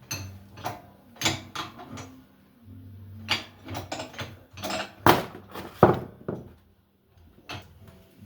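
A series of irregular knocks and clatters, metal parts being handled and struck while an exhaust fan is taken apart, with the two loudest knocks about five and six seconds in.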